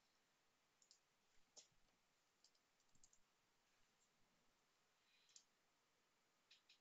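Near silence with faint, scattered computer keyboard keystrokes: a handful of short, separate clicks as a username and password are typed.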